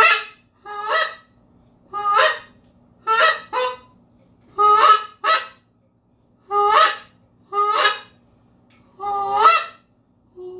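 Long wooden goose call blown in a series of about ten short honks, irregularly spaced, some in quick pairs. Each note starts low and breaks upward to a higher pitch: the break that makes a goose honk.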